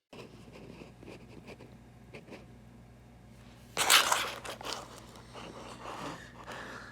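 Rustling and crinkling handling noise with small clicks, and a louder crunching crinkle about four seconds in, over a low steady hum.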